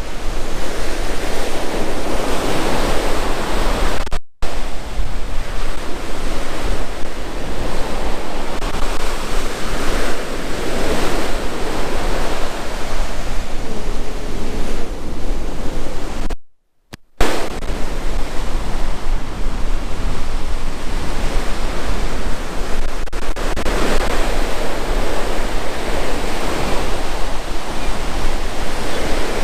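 Ocean surf breaking and washing up the beach, swelling and easing every several seconds. The sound cuts out completely twice: a moment about four seconds in and again for about half a second around sixteen seconds.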